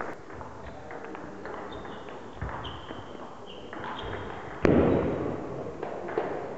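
Table-tennis rally: the celluloid ball clicking off the bats and the table in quick exchanges, with short squeaks of rubber on the wooden floor. About two-thirds of the way through comes one loud thud that rings on briefly in the hall.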